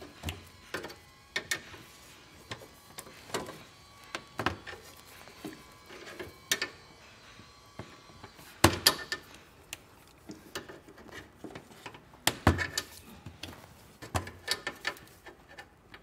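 Small hand snips cutting away pieces of plastic: a string of sharp, irregular snips and snaps, the loudest about halfway through and again a few seconds later.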